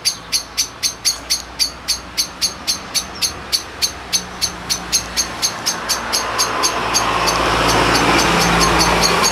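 A vehicle approaching and passing, its rumble swelling over the last few seconds, over a steady rhythmic chirping of about four to five pulses a second.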